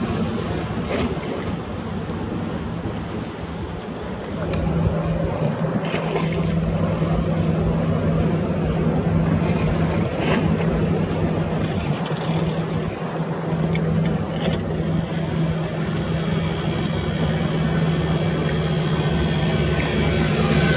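A steady low engine-like drone, which comes in about four seconds in, over outdoor wind noise, with a few faint clicks.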